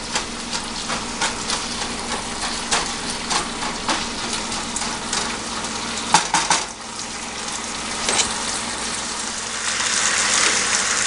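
Chicken sizzling in orange sauce in a frying pan while it is stirred, the utensil scraping and clicking against the pan again and again. The sizzling grows louder near the end as the pan heats through.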